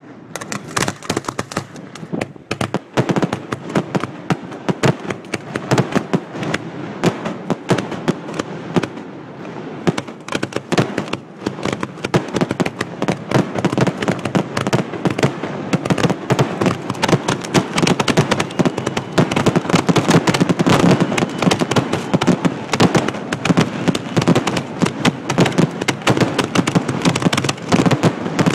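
Fireworks finale barrage: mortar shells firing from racks close by and bursting overhead in a rapid, unbroken stream of bangs and cracks. It grows louder and denser from about halfway through.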